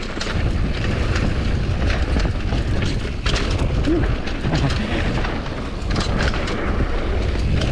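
Wind buffeting an action camera's microphone as a Commencal Supreme DH downhill mountain bike runs down a rough dirt trail: a steady low rumble with frequent sharp knocks and rattles from the tyres, chain and suspension over bumps.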